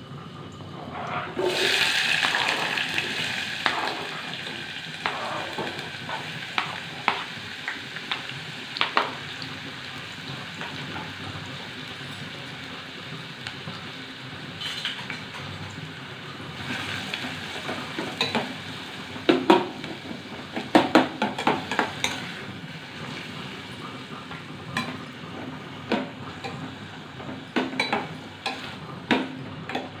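Chopped onions hitting hot oil in a stainless-steel pan: a sudden loud sizzle about a second and a half in that settles into a steady fry. From the second half on, a spoon stirs the onions, with sharp clicks and scrapes of metal against the pan, thickest near the end.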